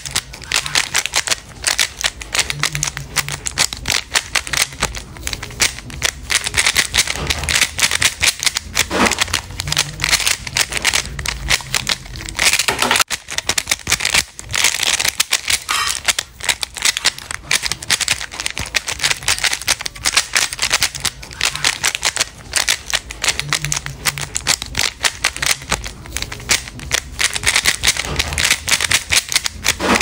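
Rubik's Cube being turned quickly by hand: its plastic layers click and rattle in a fast, continuous stream of clicks, with a brief break about thirteen seconds in.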